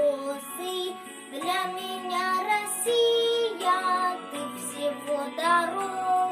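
Children's song: a child's voice singing a melody over an instrumental backing.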